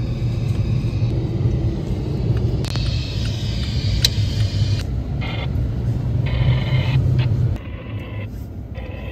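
Engine and road noise heard inside a moving vehicle's cabin: a steady low rumble that drops quieter near the end as the vehicle slows.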